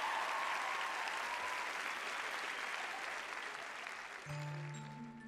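Studio audience applauding and cheering with whistling, slowly dying down. About four seconds in, a recorded music track starts with slow, sustained low notes.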